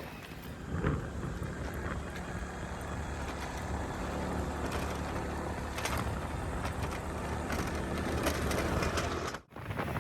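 A motor vehicle's engine running steadily while travelling, with road and wind noise. It cuts out abruptly for a moment near the end.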